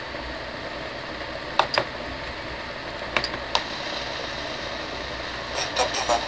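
A few sharp plastic clicks over a steady low hiss: buttons being pressed on a small UTECH DVX-600 camcorder to start playback, two pairs of clicks then a short cluster near the end.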